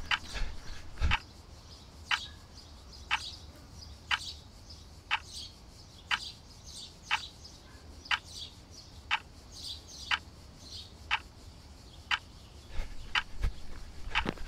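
Steady ticking, about one sharp tick a second, with fainter higher clicks between the ticks. Near the end, a few heavier footfalls on stone steps.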